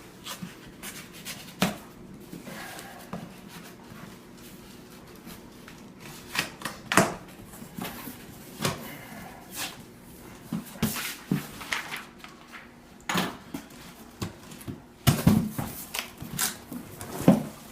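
Box and packaging being opened and the contents handled: scattered knocks, taps and rustling, busier near the end.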